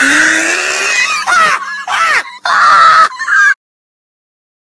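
Teenager's loud, drawn-out shrieking and yelling with sliding pitch, cutting off abruptly about three and a half seconds in.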